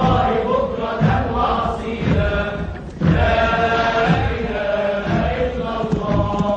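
Chanted song: voices hold long notes in a chant-like melody over low beats about once a second.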